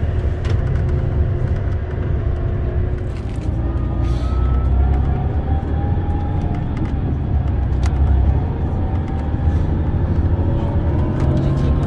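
Steady low rumble of engine and road noise inside a moving Scania Caetano Levante 2 coach, with a faint whine that drifts slowly up and down in pitch.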